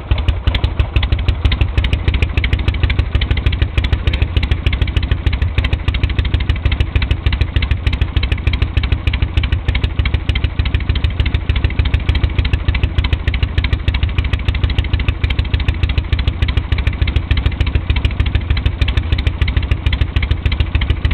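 1976 Harley-Davidson Electra Glide's Shovelhead V-twin running steadily with an even, fast firing pulse, just brought to life by a jump-start off a flat battery.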